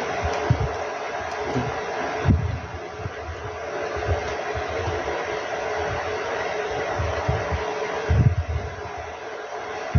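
A steady airy hiss, with soft low thumps now and then, the loudest about two seconds in and about eight seconds in.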